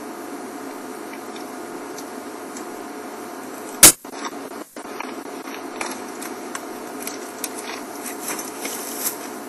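Dry branches of a leafless tree under a man climbing through it: one loud, sharp crack about four seconds in, then scattered small snaps and scrapes, over a steady hum.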